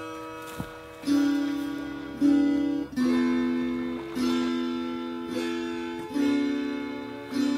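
Instrumental background music: a slow melody on a plucked string instrument, one note struck about every second and left to ring out.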